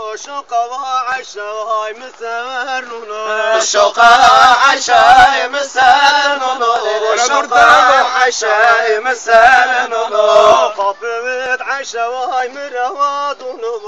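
Male voice singing a Zazaki halay folk song, louder and fuller from about four to eleven seconds in.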